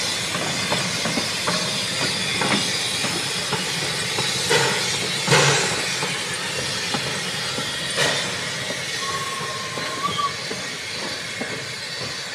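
1877 Rogers 4-4-0 steam locomotive K88 'Washington' running slowly past with its train: a steady hiss of steam, with scattered clicks and knocks from the wheels on the track, the loudest about five seconds in.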